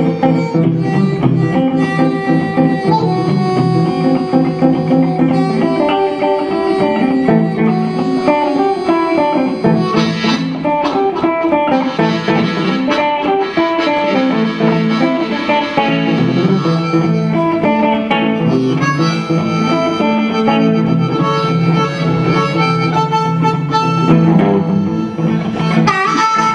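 Live blues played on a hollow-body electric guitar and a harmonica cupped to a microphone, with no singing.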